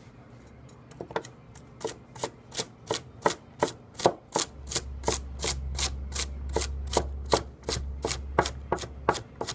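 Masakage Yuki 210 mm white #2 steel chef's knife dicing carrot sticks on a wooden cutting board: a steady run of crisp chops, about three a second, starting about a second in.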